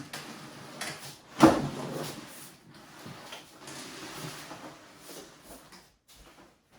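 A sharp knock about a second and a half in, then several seconds of rustling and light scraping as kitchen items are handled.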